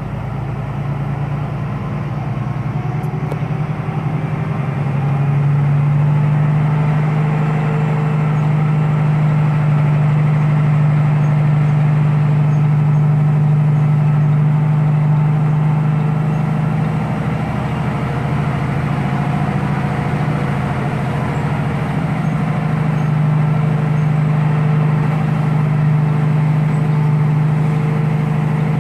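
Heavy truck's diesel engine running steadily, heard from inside the cab; it grows somewhat louder about five seconds in and holds there.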